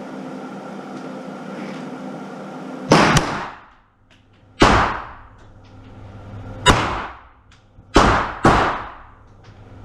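Glock 17 9mm pistol firing a string of single shots: the first pair close together about three seconds in, then shots roughly every one and a half to two seconds, the last two close together. Each shot is sharp and loud with a reverberant tail. A steady ventilation hum runs before the first shot.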